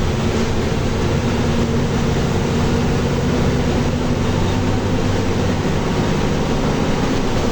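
Mercedes-Benz OF-1724L bus's front-mounted diesel engine running steadily as the bus drives, with road noise underneath.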